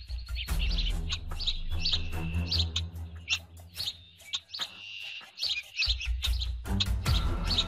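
Birds chirping in short repeated calls over a low, sustained music bed; the music drops away briefly about five seconds in, then returns.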